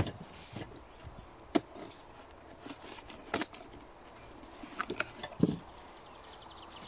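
Cardboard packaging being handled: a small cardboard box is lifted from a carton and its flaps opened, giving a few sharp knocks and scrapes, the loudest at the start, with quieter rustling between.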